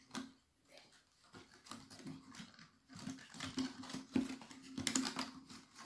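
Light irregular clicking and rustling of hands working a fabric sock loop between the thin strips of a cut clear plastic cup, the strips ticking against fingers and each other, busier in the second half.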